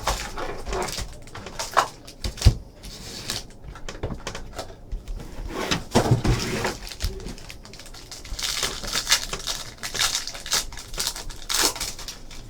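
Trading-card box and pack being opened by hand: rustling of packaging and card stock with scattered clicks and knocks, and one sharper thump about two and a half seconds in.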